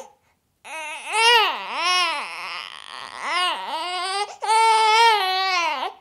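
A baby whining: after a brief pause, a run of short rising-and-falling whimpering cries, then one longer held wail near the end.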